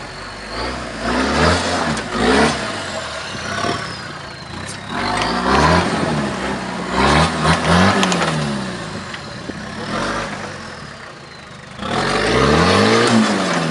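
Toyota Land Cruiser LJ73's turbodiesel engine revving up and dropping back in repeated surges as the 4x4 crawls through a deep rut, the last surge near the end the loudest. A faint high whistle glides down between the revs.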